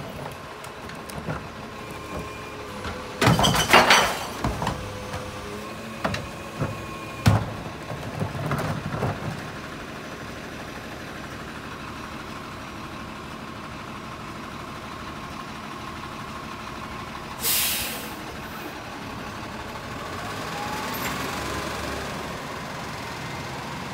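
Autocar rear-loader garbage truck with a Heil body running at the curb while a recycling cart is emptied into the rear hopper: a cluster of loud bangs and clatter in the first several seconds. A short, sharp hiss of the air brakes releasing comes just past the middle, and the truck then pulls away with the engine rising.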